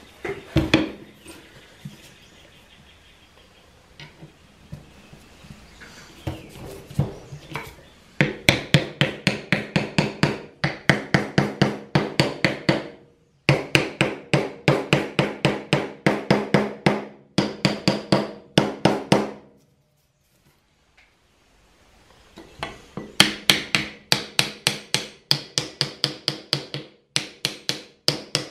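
Small ball-peen hammer tapping brass pins to peen them over and rivet wooden scales onto a meat cleaver's tang. Quick, even taps, about four a second, come in runs several seconds long, with each tap ringing briefly. The taps stop for about two seconds around two thirds of the way through.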